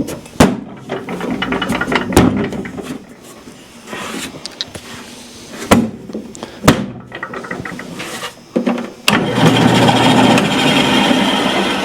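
Several sharp knocks and clicks as the bandsaw's wheel cover goes back on. About nine seconds in, the bandsaw starts up and runs steadily, its blade just put back on the wheel and readjusted after jumping off.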